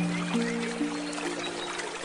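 Soft handpan notes struck one after another, each ringing on, over the steady rush of a flowing river.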